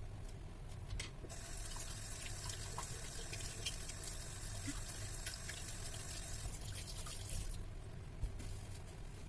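Water running from a tap, starting about a second in and stopping near the end, with a few small clicks and splashes. A low steady hum sits underneath.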